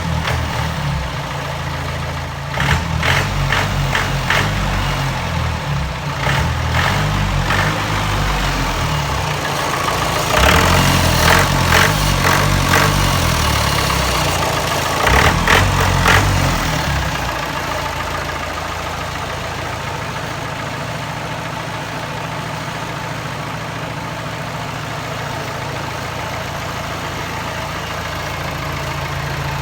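Mahindra DI diesel engine in a jeep, running. Over the first half it surges louder several times as the throttle is blipped, then it settles into a steady idle for the rest.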